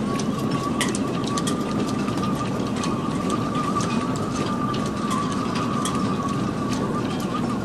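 Gale-force wind through a boat's rigging: a steady rush of wind with a high whistle that holds one pitch, wavering slightly, and many scattered sharp ticks.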